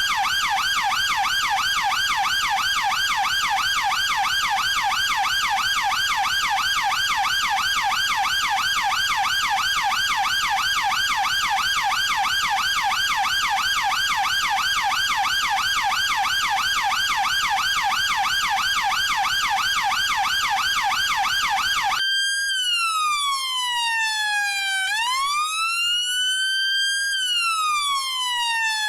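UK police car siren sounding a rapid yelp, its pitch sweeping up and down several times a second over a steady hiss. About 22 seconds in it switches abruptly to a slow wail that falls, rises and falls again over a few seconds each way.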